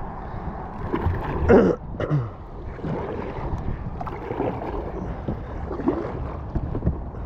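Paddles dipping and splashing in river water around an inflatable kayak, with wind rumbling on the microphone throughout. A short, louder voice-like sound comes about a second and a half in.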